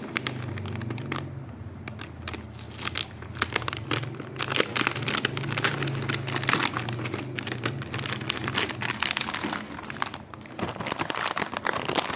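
Plastic packaging crinkling and crackling irregularly as it is handled and opened, over a low steady hum that fades out about two-thirds of the way through.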